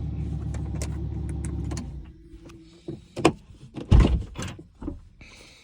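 Lamborghini Huracán V10 idling steadily, then switched off about two seconds in. A few clicks and knocks follow, the loudest a low thud near four seconds.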